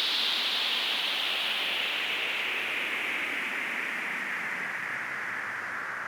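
Filtered white-noise sweep, a DJ downlifter effect: a band of hiss slowly falling in pitch and gradually fading.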